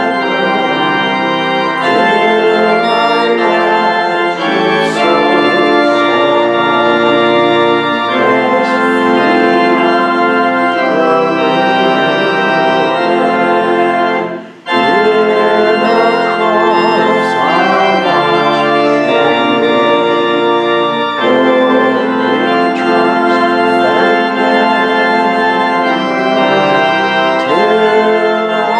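Two-manual church organ playing a hymn in sustained chords, with a short break about halfway through before the next phrase begins. A woman's voice sings along with the organ.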